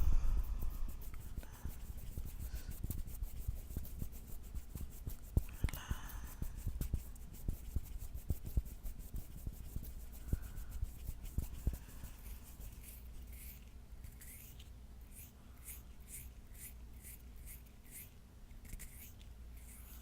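Close-miked ASMR hand sounds: fingers rubbing and fingernails scratching skin. A thump on the microphone comes at the start, and a quick run of short, scratchy strokes fills the second half.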